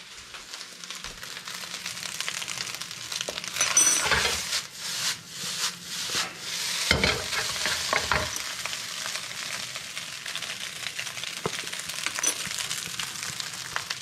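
Fried rice sizzling in a carbon steel wok as it is stirred and tossed with a wooden spatula. The spatula scrapes and knocks against the pan, loudest about four seconds and seven seconds in.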